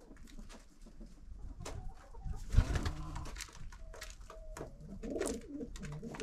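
Domestic pigeons cooing, with many short clicks of beaks pecking at grain and one low thump about two and a half seconds in.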